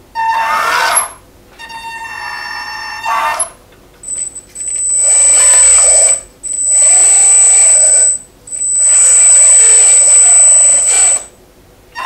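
1:14 Double E E116 RC hydraulic skid steer loader running its drive motors and hydraulic pump, with a high steady whine. It runs in three stretches, breaking off briefly twice, and stops near the end. Before it starts, a few seconds of held tones.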